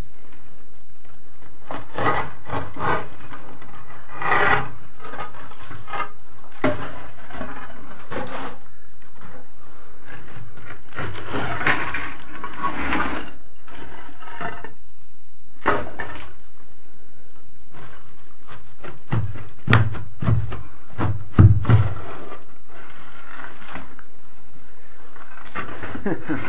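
Broken concrete floor slab and rubble being handled, with irregular scraping and knocking of chunks and grit. There are a few heavier thuds about two-thirds of the way through.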